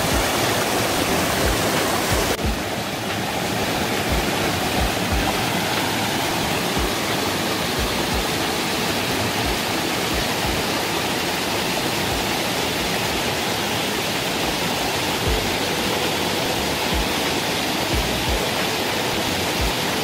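Mountain stream rushing and splashing in small cascades over moss-covered boulders: a steady, full roar of water with a slight change in tone about two seconds in.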